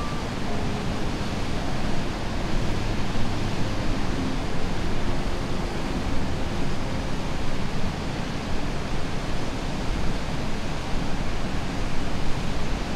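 Waterfall on a river, water rushing in a steady, even noise that does not let up.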